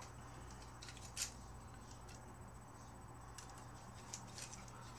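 Faint clicks and taps of a plastic Transformers Prime Deluxe Ratchet action figure being handled, its parts and blades snapped into place, over a steady low hum.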